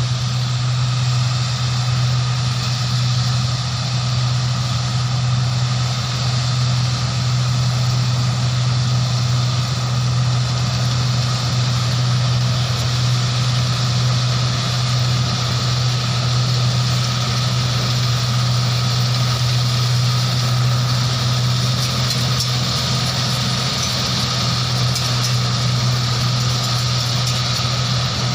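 Engines of two rice paddy machines running steadily. A constant low hum carries a higher hiss of working machinery over it.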